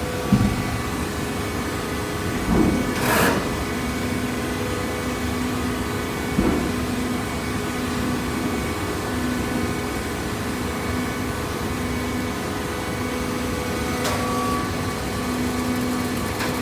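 Single-phase electric motor of a cardboard box baler running with a steady hum, with a few knocks in the first several seconds.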